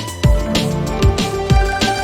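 Background music: an electronic track with a steady beat of drum hits over a deep bass and held synth notes.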